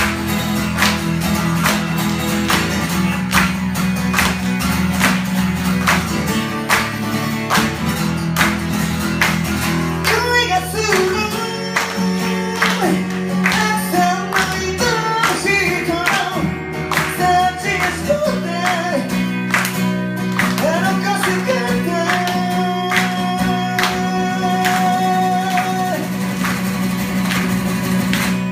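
Solo acoustic guitar strummed hard with sharp, percussive strokes; from about ten seconds in, a man sings over it, holding one long note near the end.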